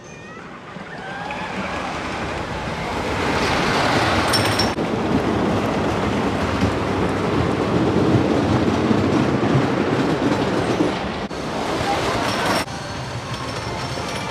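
Wooden roller coaster train running over its wooden track: a rumbling clatter that swells as the train comes near and passes close, then drops away abruptly.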